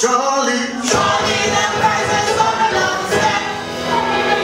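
Church choir singing with instrumental backing. A lone voice carries the first second, then the choir and band with drums come in together and keep going.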